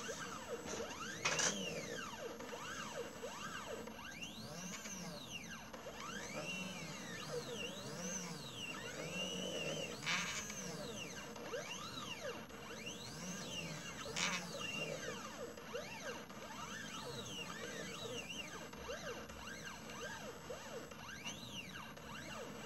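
Stepper motors of a mini CNC laser engraver whining in repeated rising and falling glides as they speed up and slow down, moving the laser head back and forth over the work. A few brief sharper bursts stand out, about a second in, around ten seconds and around fourteen seconds.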